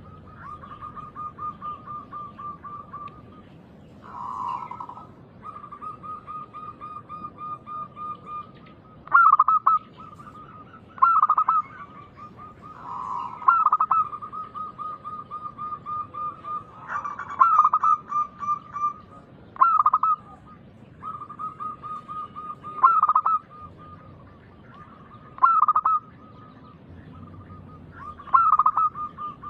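Zebra doves (perkutut) cooing: a steady run of quick, soft coo notes, broken about every two to three seconds by a louder burst of cooing.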